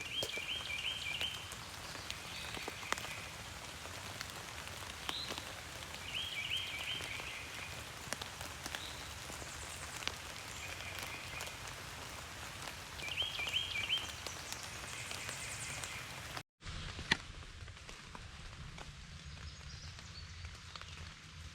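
Steady rain falling with scattered raindrop taps, and a songbird repeating a short, quick phrase of high notes three times, about every seven seconds. The sound drops out for a moment near the end, and then only the rain goes on.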